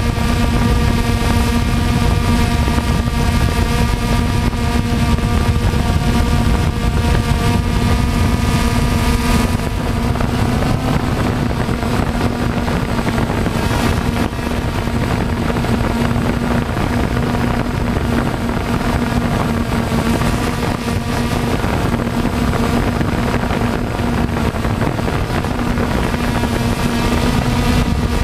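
Quadcopter drone's motors and propellers running with a steady buzzing hum, heard from the camera on board; the pitch shifts slightly about ten seconds in as it manoeuvres.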